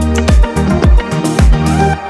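Upbeat electronic dance music with a heavy kick drum and bass line, cutting off abruptly at the end.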